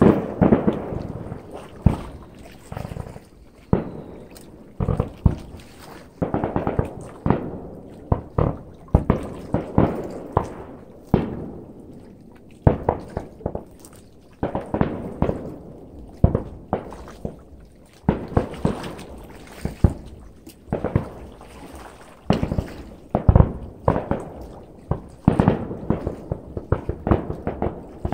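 Fireworks display: shells bursting one after another in quick, irregular succession, each bang fading out over about a second.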